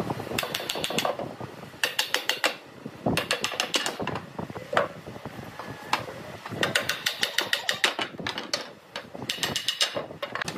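Quick runs of sharp tapping or clicking, about ten a second, in five short bursts with pauses between.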